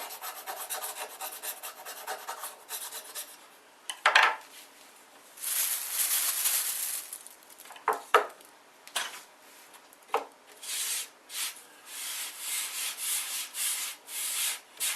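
Wood being rubbed down by hand in repeated abrasive strokes, cleaning up a freshly drilled shallow recess. The strokes are quick at first, then come singly with gaps, including one long stroke midway, and near the end settle into about two strokes a second.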